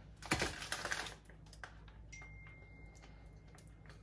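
A utensil scraping and clicking in a frying pan while tomato sauce is spread over a layer of sliced potatoes: one short rough burst about a third of a second in, lasting under a second.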